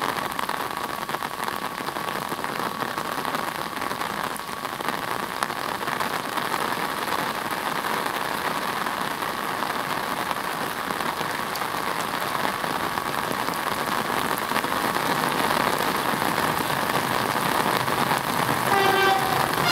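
Steady rain falling on wet pavement and track ballast, a little louder in the last few seconds. Near the end comes one short horn blast from an approaching Renfe class 449 electric train.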